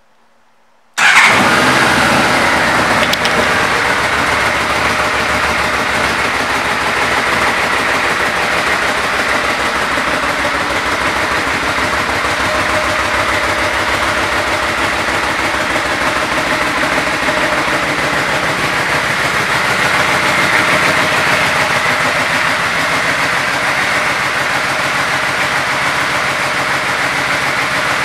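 1999 Yamaha Royal Star Venture's 1294 cc V4 engine starting about a second in and settling into a steady idle.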